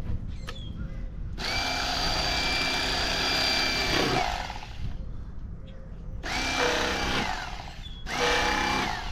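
Electric fillet knife running in three bursts as it cuts crappie fillets along the backbone: a steady motor whine, the first burst about three seconds long and two shorter ones near the end, the pitch dropping as the motor stops.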